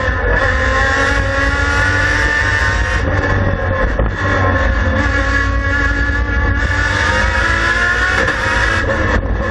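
Race car engine heard from inside the stripped cabin, revving hard under full acceleration. The pitch climbs for about three seconds and drops at a gear change about four seconds in, then climbs again and drops at another gear change near the end.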